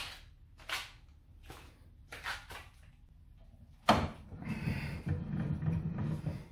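A few light clicks and knocks on a mini milling machine. About four seconds in comes a sharp knock, then a couple of seconds of rough, uneven mechanical noise as the mill head is cranked up the column by its handwheel.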